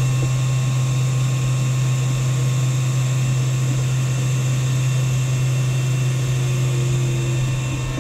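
Atezr diode laser engraver cutting through wood with its air assist on full blast: a loud, steady hum with a faint high whine over it, fading near the end.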